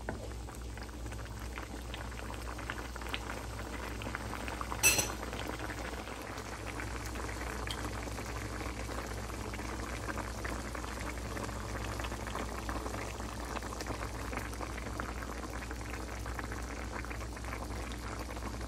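Pork, black bean and jackfruit stew boiling in a pan, a steady bubbling crackle of the broth. A single sharp click about five seconds in, over a low steady hum.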